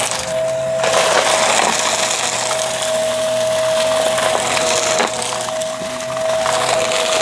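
Vacuum cleaner running with a steady whine while sucking up crunchy debris, which makes a dense crackling and popping.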